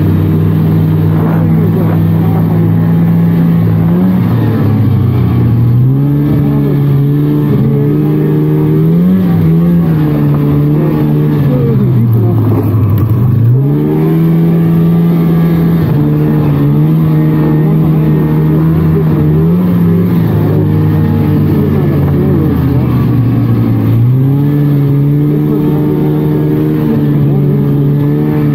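A 1999 Polaris trail snowmobile's two-stroke engine running under way. Its pitch holds steady at cruising speed, then repeatedly drops as the throttle eases and climbs again. The deepest drop comes about halfway through.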